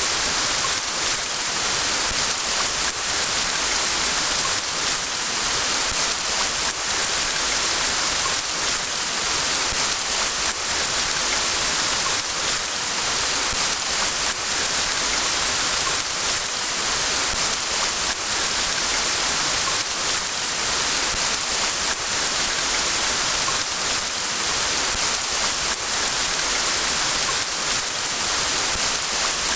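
Steady rain falling: a dense, even hiss made of countless small drop impacts, unchanging throughout.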